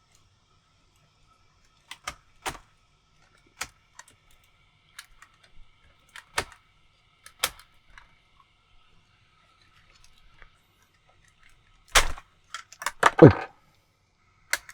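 Sharp clicks and clacks of the plastic and die-cast parts of a Soul of Chogokin GX-104 GaoFighGar figure being handled while its train part is pushed up into the waist. Single clicks are spaced a second or more apart, then a quick cluster of louder knocks comes about twelve seconds in.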